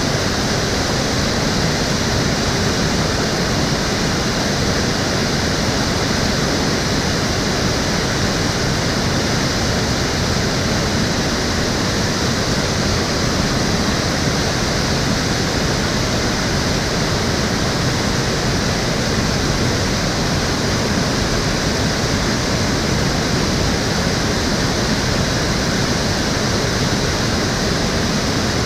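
Shallow urban stream water rushing and splashing steadily, a constant full rush with no breaks.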